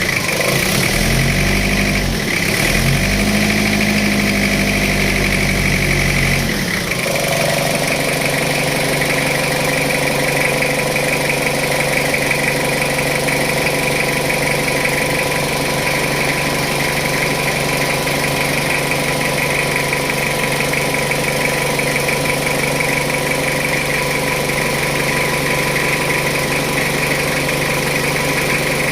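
Jeep Wrangler engine running, revved up and back down twice in the first six seconds or so, then idling steadily.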